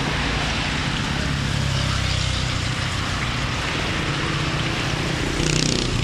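Hot oil sizzling in a large wok as battered fruit pieces deep-fry, over a steady low hum. About five and a half seconds in, a sharper, louder hiss as another battered piece goes into the oil.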